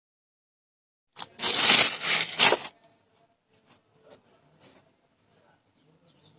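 Box packaging being handled: a loud rustling, scraping burst of about a second and a half, then a few faint light clicks.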